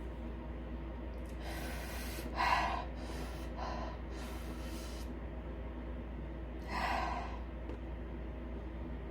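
A woman's short, breathy gasps and sniffs: a run of them over a few seconds, the loudest about two and a half seconds in, then one more about seven seconds in, over a steady low hum.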